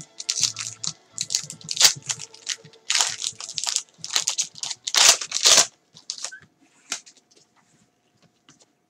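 Foil wrapper of a Rookies & Stars card pack being torn open and crinkled: a quick run of crackling rips for about six seconds, then a few faint ticks as the cards are handled.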